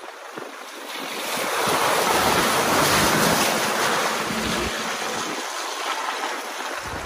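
Wind buffeting a phone microphone held out of a moving vehicle's side window, mixed with the rush of tyres through wet mud and puddles. It swells about a second in, is loudest for a couple of seconds and eases off.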